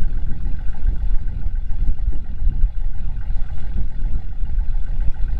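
Vehicle running, a steady low rumble with a faint even hum above it.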